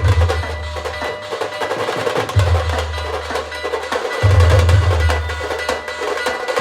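Khandeshi band's dhol-tasha drumming: dense, rapid, sharp tasha and timki strikes over deep low drum notes that come in about every two seconds.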